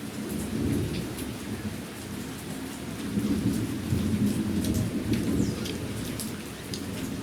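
Steady rain, with a low rumble that swells about three seconds in and eases off again.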